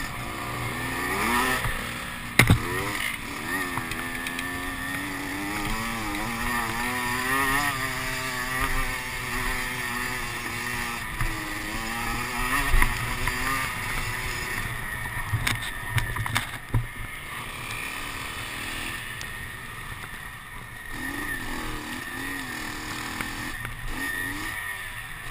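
Motocross bike engine running at low to moderate revs, its pitch rising and falling as it is throttled on and off. A few sharp knocks come through, one about two seconds in and a cluster around the middle.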